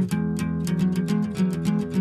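Background music on guitar, plucked notes in a quick, even rhythm.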